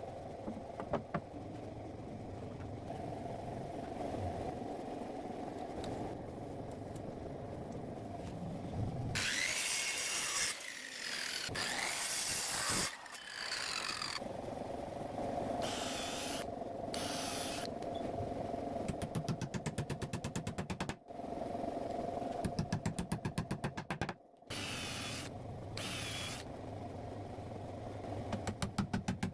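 Woodworking power-tool work: a power tool cutting wood in several loud bursts of one to three seconds each, over a steady background hum, with rapid even ticking in places.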